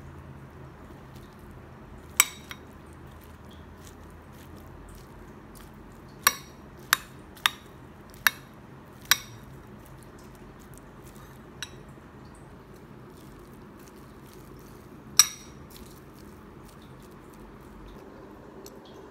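Metal spoon clinking against a ceramic bowl while cutting up a fried egg over rice: a sharp clink about two seconds in, a quick run of five over the next few seconds, and one loud clink later.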